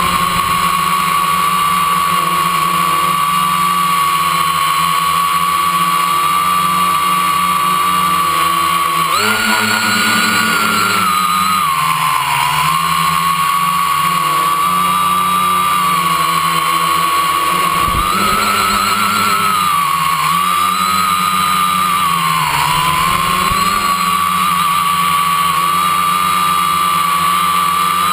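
Quadcopter's brushless electric motors and propellers, heard up close from a camera on the frame: a loud, steady whine that jumps up in pitch about nine seconds in, sags a few seconds later, and wavers up and down in the second half as the throttle changes.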